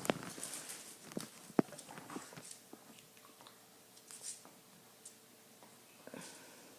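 Puppies moving about: scattered light taps and clicks, with one sharper tap about a second and a half in.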